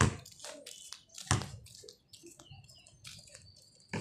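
Two thuds of a basketball bouncing, a little over a second apart.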